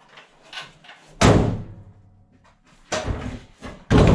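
Hood of a 1999 Jeep Cherokee slammed shut with a heavy metal thud about a second in, followed by more thumps on the hood near the end.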